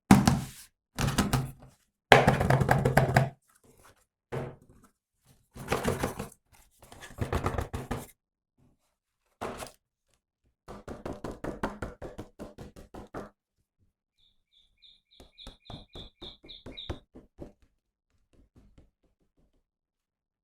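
Handling of toys and their packaging: a series of thunks, knocks and rustling bursts. About fifteen seconds in comes a short run of quick high beeps over fast ticking.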